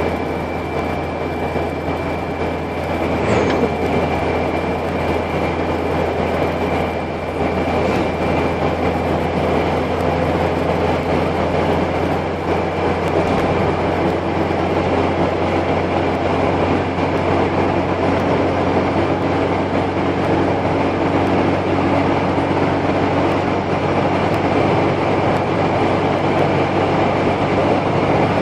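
Car engine and road noise heard from inside the cabin while driving: a steady low engine hum under an even rumble of tyres and wind.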